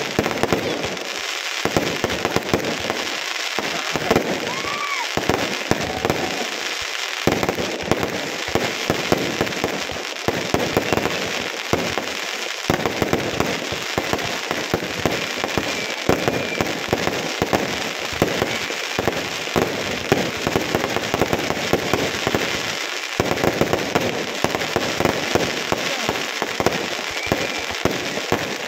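Fireworks going off without a break: dense, rapid crackling with many sharp pops and bangs from ground fountains and aerial bursts.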